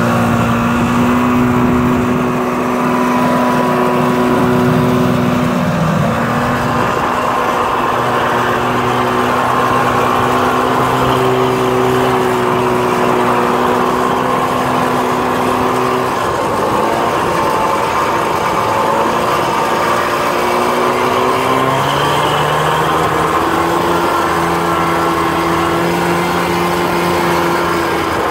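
Vintage two-stroke snowmobile engines running at cruising speed across the snow, the engine note steady but dipping and shifting pitch a few times as the throttle changes.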